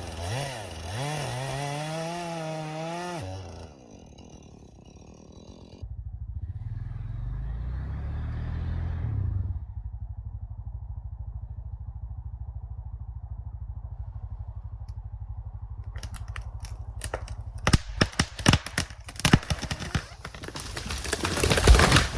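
Small engine revving, then an ATV engine running steadily as it pulls the notched tree over. In the last five seconds the trunk gives way in a run of sharp cracks and snaps, and the tree crashes down right at the end.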